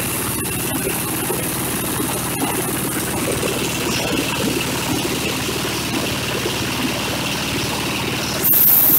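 Small diesel engine running steadily at constant speed, driving a corn husker-sheller, with a few sharp clicks. Near the end a loud high hiss starts and lasts about a second.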